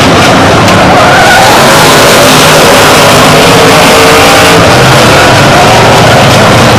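Race car engines running hard on the track, recorded so loud it distorts, with tires skidding as a car spins out in a cloud of tire smoke.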